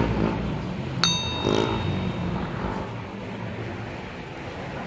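A bright subscribe-bell notification ding: a single sharp strike about a second in, with several high tones ringing on for a few seconds, over steady street traffic noise.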